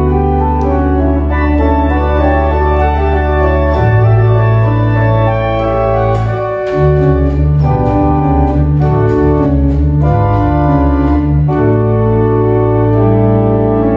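Church organ playing the closing voluntary after the blessing: full sustained chords over deep held bass notes that change every few seconds.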